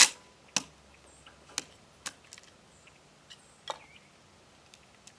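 5.7×28mm cartridges being pushed from a stripper clip into a Kel-Tec PR-5.7 magazine: a run of sharp clicks, the first ones loud, then fainter and more spread out.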